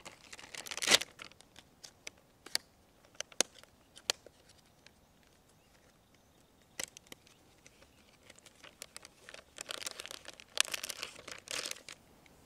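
Crinkling and rustling of a plastic soft-bait package being handled, with scattered sharp clicks and taps. The crinkling is heaviest about a second in and again near the end.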